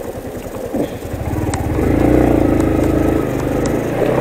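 Yamaha MT-15's single-cylinder engine running at low revs, then opening up and pulling harder about a second and a half in. A few light clicks sound over it.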